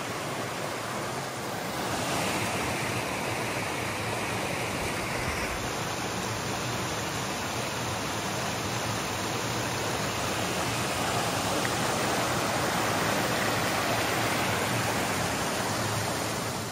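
Shallow brook rushing over flat rock ledges in small cascades: a steady rush of water, its tone shifting slightly about two and five seconds in.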